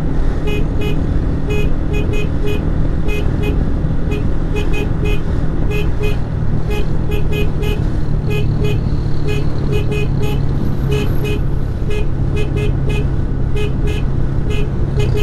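Honda 160 motorcycle's single-cylinder engine running steadily under way, with heavy wind and road noise. Short beeps repeat throughout.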